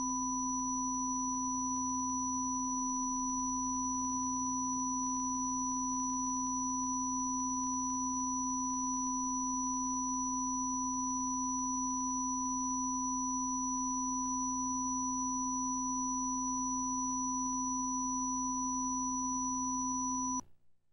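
Quality-control test signal from a Japanese videotape: steady pure sine tones, a low one, a middle one near 1 kHz and a high one, held together and unchanging. The signal is deliberate, not a fault. It cuts off abruptly near the end.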